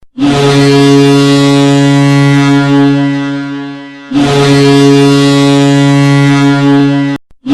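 Boston Bruins arena goal horn: a deep, steady horn blast that fades out, then a second long blast that cuts off suddenly about seven seconds in, with a third starting at the very end. The horn signals a goal.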